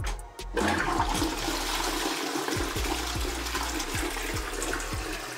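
Toilet with a newly replaced siphon flushing: water rushes into the bowl about half a second in and keeps running at a steady level.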